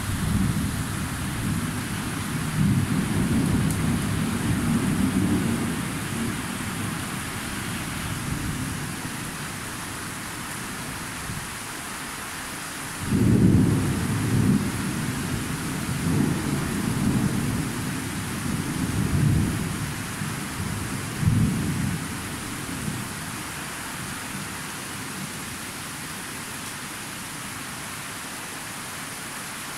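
Thunder rolling over a steady hiss of rain: a long low rumble through the first quarter, then a sudden louder peal a little before halfway that rolls on in several swells and dies away about three-quarters through, leaving only the rain.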